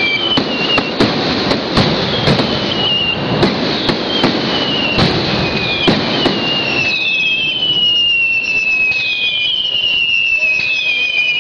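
A fireworks display: rapid, overlapping bangs and crackling from aerial shells, densest for the first seven seconds and thinning out after. Through it a high whistle falls in pitch, over and over, every couple of seconds.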